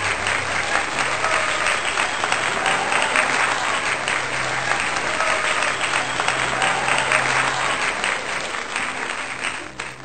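A crowd applauding: dense, steady clapping with a few short whistles, fading away and stopping near the end, over soft background music.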